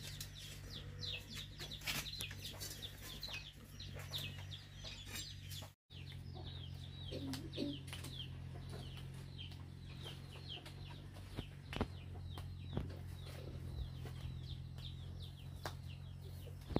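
Domestic chickens clucking, with many short high peeps throughout, over a steady low hum; the sound cuts out for a moment about six seconds in.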